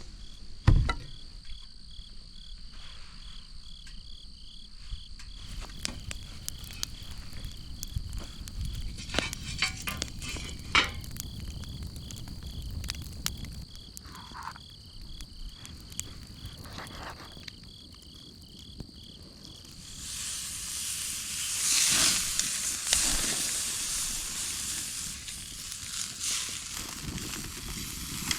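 Steak sizzling over a campfire: a loud frying hiss begins about two-thirds of the way through and carries on. Before it, insects chirp in a fast, even pulse, with a few clicks of handling.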